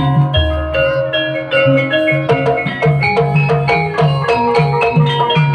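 Javanese gamelan accompaniment for an ebeg trance dance: struck, ringing metallophone notes playing a steady, even rhythmic melody over low sustained bass notes.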